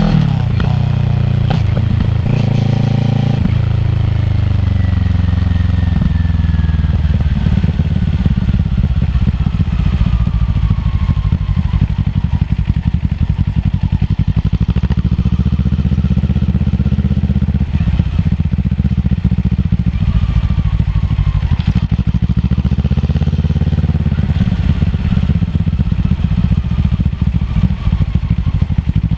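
Kawasaki ER-6f's parallel-twin engine running through a Yoshimura full-system exhaust. The engine speed changes several times in the first few seconds, then the bike runs steadier for the rest.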